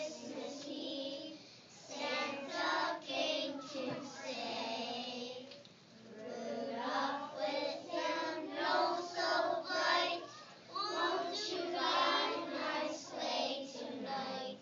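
A group of young children singing a song together, with brief breaks between phrases.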